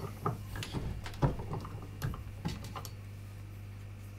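Irregular light clicks and knocks from working a small hand arbor press to press metal solder turrets into a board, with the board and turrets being handled between presses; the loudest knock comes about a second in, and the clicks thin out after about three seconds.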